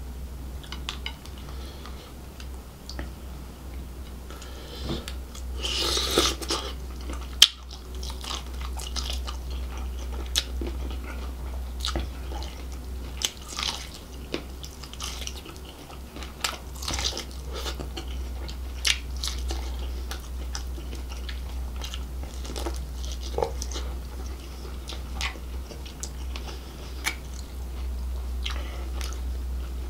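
Close-miked eating of grilled seafood: biting and chewing with wet mouth clicks and lip smacks, and a louder crunchy stretch about six seconds in.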